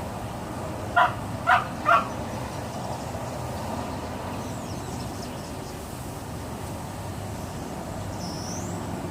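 Boxer dog giving three short, high barks in quick succession, about half a second apart: play noises, not distress. A steady background rumble runs under them.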